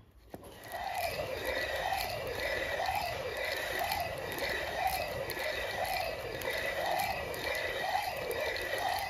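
Hand quern of two stacked millstones turned by a wooden handle, grinding grain: a steady stone-on-stone grinding scrape that starts about half a second in and swells and fades about once a second as the stone turns.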